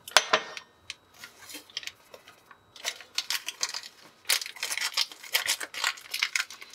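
Crinkling and rustling of a small foil packet of granulated chicken stock being handled and shaken over a bowl, dense and crackly through the second half, after a sharp click near the start.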